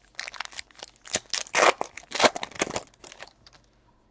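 Foil wrapper of a Panini Elite Extra Edition baseball card pack being torn open and crinkled by hand. It makes a run of irregular crackling rips and rustles for about three seconds, then stops.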